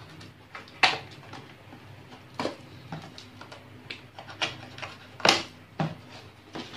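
A small box cutter slicing through plastic stretch wrap and cardboard on a parcel, with the plastic crackling. Irregular sharp snaps, the two loudest about a second in and about five seconds in.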